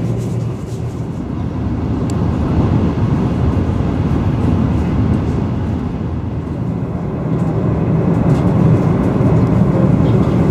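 Steady low rumble and rush of an Italo high-speed train heard from inside the carriage while it runs at speed, around 300 km/h.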